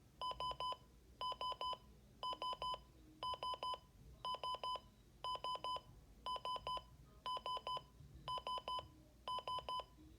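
Midland WR300 weather radio's alarm clock beeping: bursts of four quick, high electronic beeps at one pitch, repeating about once a second.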